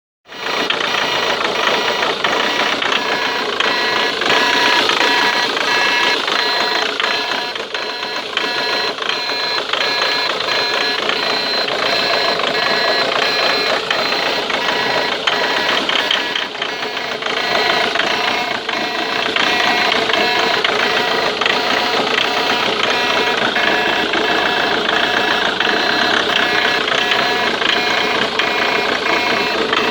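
Ford Mondeo Mk3 TDCi common-rail diesel engine running steadily, with a rapid, even ticking clatter and a steady high whine over it. This is the strange noise that the owner traces to the injector area and cannot explain.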